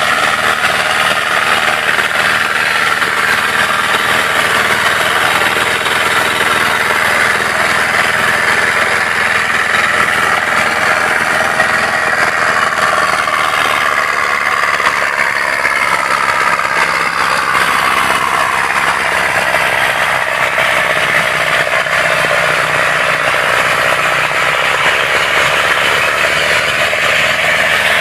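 Ace 6565 tractor engine running steadily as it pulls a disc harrow through tilled soil.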